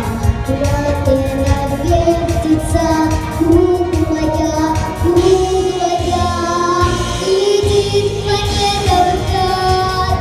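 A pop song played on a backing track, with a young girl singing the melody.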